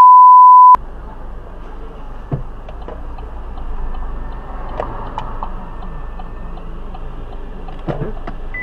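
A loud steady beep at one pitch cuts off sharply under a second in: a censor bleep over the spoken address. After it comes the low steady rumble of a car's cabin with the engine running, with a few faint scattered clicks.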